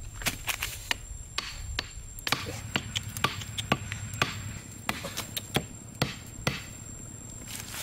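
Bamboo stake being hammered into dry ground with the back of a heavy bush blade: a string of sharp, irregular knocks, some in quick pairs.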